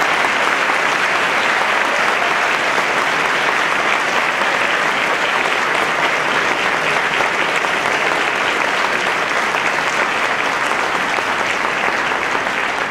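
Audience applauding: a long, steady round of clapping that eases slightly near the end.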